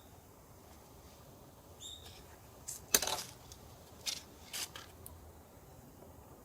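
A few sharp clicks and light knocks, the loudest about three seconds in. A short high chirp sounds about two seconds in.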